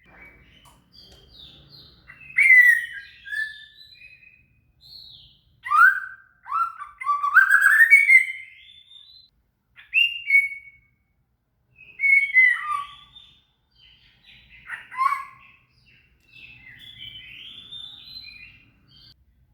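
White-rumped shama (murai batu) singing: loud, varied whistled phrases with quick slurred notes and trills, coming in bursts with short pauses between them.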